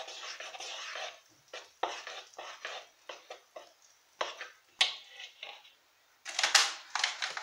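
Metal fork stirring dough in a plastic mixing bowl: irregular short scrapes and knocks against the bowl's sides, with a louder flurry of scraping near the end.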